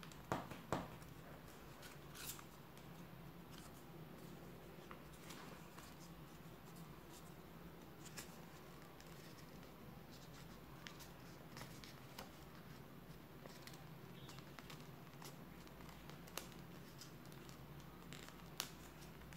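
A sheet of paper being folded and creased by hand: faint crinkling and scattered sharp ticks, with a few louder ones in the first second and one near the end, over a low steady hum.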